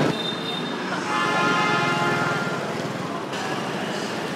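Street traffic noise, with a horn sounding for about a second and a half a little after a second in.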